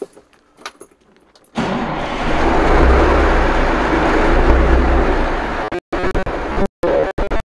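Caterpillar diesel engine of a Peterbilt 359 starting: it catches suddenly about a second and a half in and runs loudly with a deep rumble. Near the end the sound cuts out again and again in short gaps, a recording glitch.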